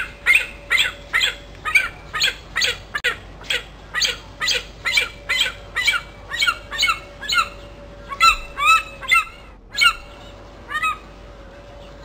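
Vulture squawking in a quick, even series of short harsh calls, roughly two a second, each dropping in pitch; the calls stop near the end.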